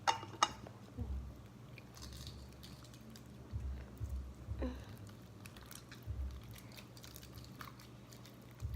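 Homemade slime being mixed and kneaded by hand, giving sticky squelching and clicking sounds, with a few dull low bumps.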